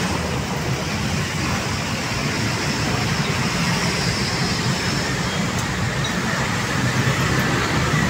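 Steady city road traffic: cars and motorcycles passing close by, their engines and tyres making a continuous low rumble.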